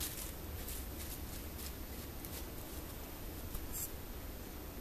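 Faint, irregular crackling of dry fallen leaves as a white-tailed deer steps through leaf litter, over a low steady rumble.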